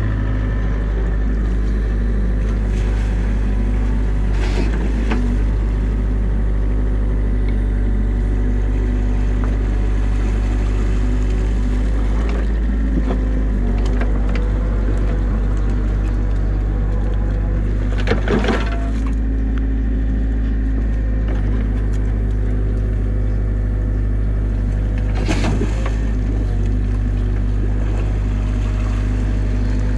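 New Holland mini excavator's diesel engine running steadily under load, with the hydraulics whining as the boom and bucket dig mud. A few short clunks of the bucket break through, about 4, 18 and 25 seconds in.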